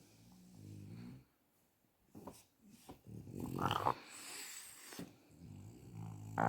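French bulldog snoring in its sleep: a run of breaths, low buzzing snores alternating with louder, raspier snorts, one every second or two.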